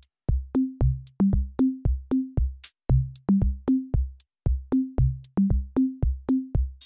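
Background electronic music: a drum-machine beat of sharp hits with short pitched low drum tones, about three a second.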